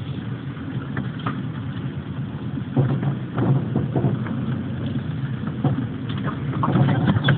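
Car engine and cabin noise with a steady low rumble as the car drives slowly in a low gear, heard from inside the car. A few short knocks and rattles come through, mostly around the middle and near the end.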